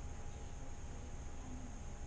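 Steady room tone: an even hiss with a low hum and a faint high steady tone, and no distinct events.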